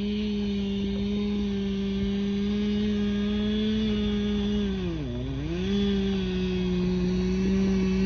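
Chainsaw running at high revs, held in a long cut through the thick trunk of a Norway spruce. About five seconds in, the engine bogs down sharply under load and then picks back up. Onlookers put the slow cut down to the thickness of the trunk and a dull chain.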